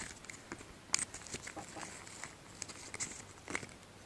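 Handling noise from the plastic lens and frame of SRC tactical airsoft goggles being fitted back together by hand: scattered small clicks and scrapes, with a couple of short squeaks.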